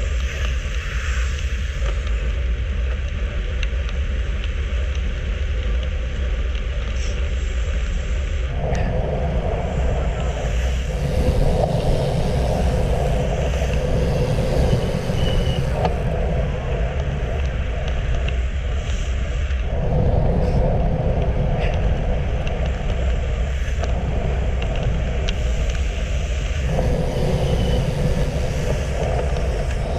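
Wind rumble on the microphone of a handlebar camera on a road bike moving at about 35 km/h, with tyre and road noise under it. The rumble grows fuller about a third of the way in and again near the end.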